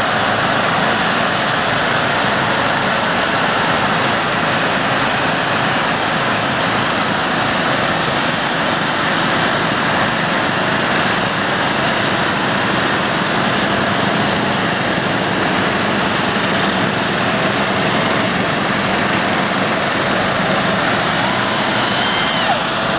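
Lawn mower engines running steadily, a dense, even drone with no clear change.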